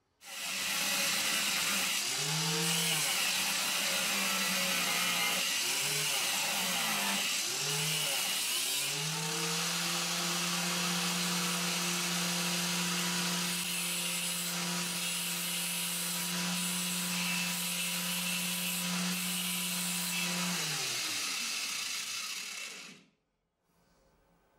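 Angle grinder in a cut-off stand, its abrasive disc cutting through a steel bolt: a loud grinding hiss over the motor's whine. The whine dips in pitch several times during the first ten seconds as the disc is pressed into the bolt, then holds steady, and the motor winds down and stops near the end.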